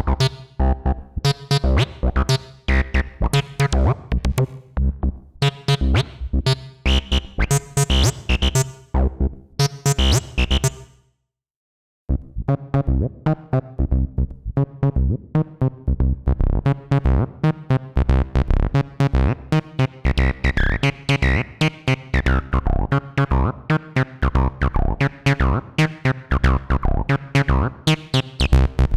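Behringer TD-3-MO analog bass synthesizer playing a sequenced, squelchy 303-style acid bassline in fast, short notes. It drops out for about a second just before halfway, then a new pattern starts, with the filter sweeping down about two-thirds of the way through.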